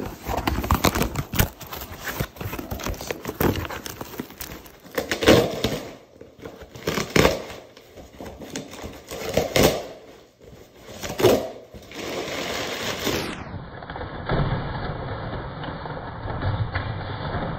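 A cardboard shipping box being torn open and crumpled packing paper rustled, with dense crackling and four loud rips a couple of seconds apart. The last few seconds turn to a duller, steady low sound.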